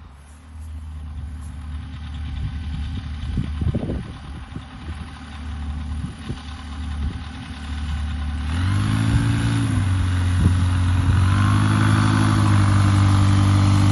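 The Highlander's Rotax 912 engine with a big-bore kit running steadily. About eight and a half seconds in the revs rise and it gets louder, then it dips and climbs again, holding higher toward the end.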